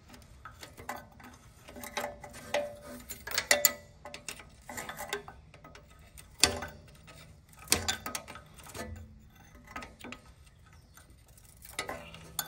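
Steel wrench clicking and scraping on a bolt on a ride-on power trowel's blade arm as the bolt is run up in short strokes, with irregular metallic clicks about once a second.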